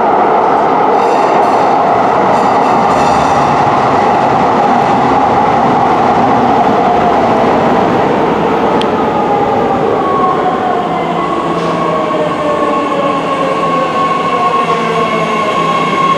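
A BART Bombardier MOVIA D-car train pulls into an underground subway station, with loud rumbling wheel-on-rail noise. A whine falls steadily in pitch as the train slows, and a steady higher tone comes in about ten seconds in.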